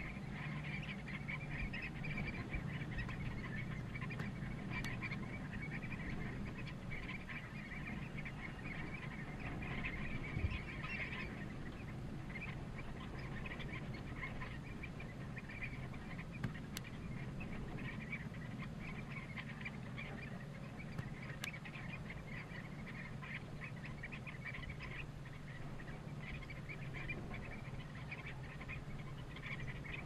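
A flock of common redshanks calling, with many short overlapping calls in a busy chatter that is thickest in the first dozen seconds, over a low steady hum.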